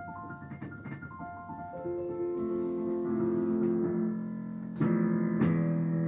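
Digital piano playing: a run of quick, light notes in the upper register, then from about two seconds in, lower held notes that grow louder, with two chords struck hard near the end.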